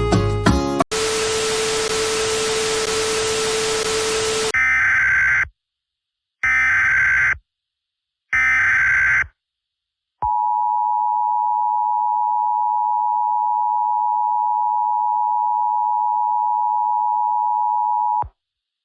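Emergency Alert System tones. Just after some music stops, there is a few seconds of static hiss with a steady low tone. Then come three SAME header data bursts, each about a second of rapid screeching digital tones, a second apart. Last is the EAS attention signal: two steady tones sounding together for about eight seconds, then cutting off.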